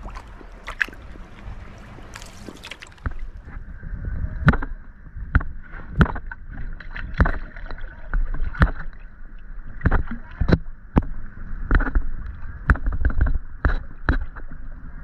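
Sharp, irregular knocks and taps on a small outrigger canoe's hull, several a second apart over a low rumble of water.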